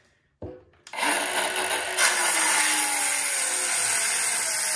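Milwaukee M12 Fuel 5-3/8-inch brushless cordless circular saw: a click, then the saw starts about a second in and grows louder a second later as the blade bites into a 1-inch-thick, tight-grained old barn-wood board. It cuts on steadily, working hard through the hard wood.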